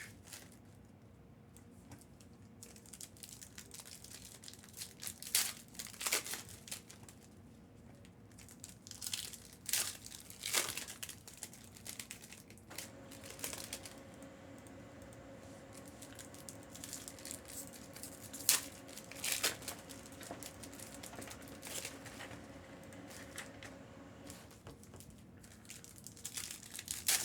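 Trading-card pack wrapping crinkling and tearing as Panini Prizm retail packs are handled and opened, in scattered short crackles.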